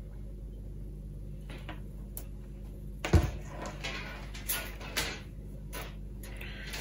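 Hands handling thick enamelled copper wire on a wooden table: a single knock about three seconds in, then rustling and a few light clicks as the wire is picked up and bent, over a steady low hum.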